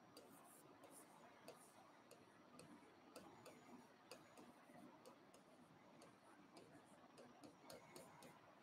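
Faint, irregular ticks and taps of a stylus writing on an interactive whiteboard screen, over a quiet room.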